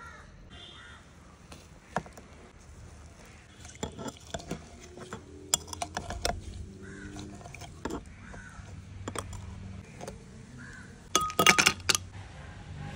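Ice cubes and ingredients clinking and knocking against a drinking glass: scattered clicks through the middle, then a loud cluster of clinks near the end with a brief glassy ring.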